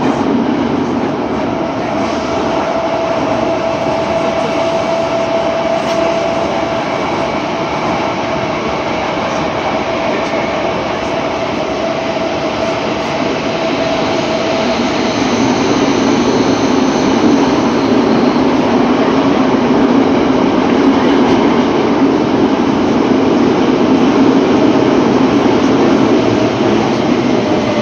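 Tokyo Metro 07 series subway train running between stations, heard from inside the car: a steady rush of wheel and running noise. A steady whine fades out about halfway through, and after that the low rumble grows louder.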